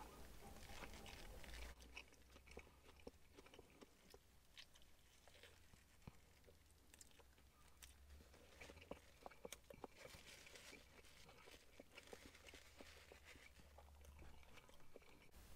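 Faint chewing of a mouthful of crispy chicken burger: soft, irregular wet clicks and small crunches from the mouth.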